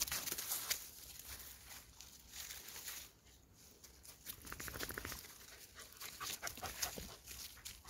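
Dry fallen leaves crunching and rustling under dogs' paws and footsteps, with a short spell of a dog's rapid breathing about halfway through.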